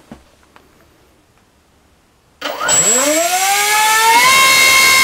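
Tarot TL3723 1700 kV brushless motor driving a 5.5x5.5 propeller on a 6S pack on a thrust stand. After a quiet start with a few faint clicks, it spins up about two and a half seconds in with a steeply rising whine, then levels off and holds a steady high whine near the end.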